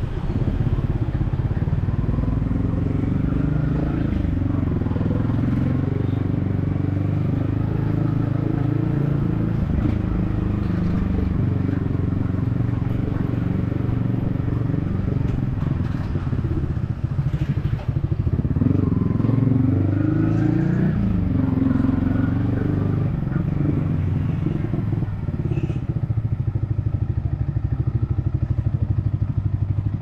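Yamaha XSR155's single-cylinder engine running under way, its revs rising and falling a few times past the middle.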